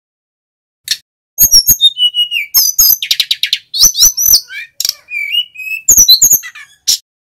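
Male sikatan gunung, a flycatcher, singing loudly at full song: a rapid, varied run of sharp high chirps, short sliding whistles and quick trills. It starts about a second in and stops shortly before the end.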